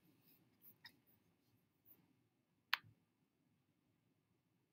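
Near silence broken by computer mouse clicks: a faint click about a second in and a single sharper click near the middle.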